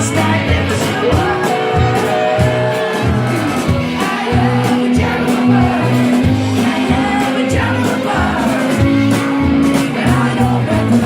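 Live rock song: a man singing over strummed guitar with a steady drum and bass beat, holding one long sung note through the middle.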